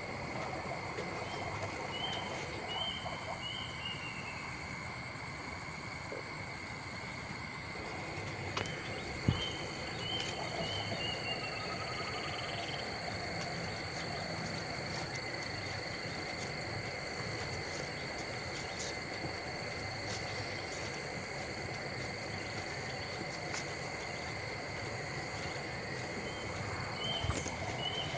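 Steady background drone of insects with two even high tones, broken by short runs of quick chirps near the start, about nine to twelve seconds in, and at the end. A single sharp tap about nine seconds in.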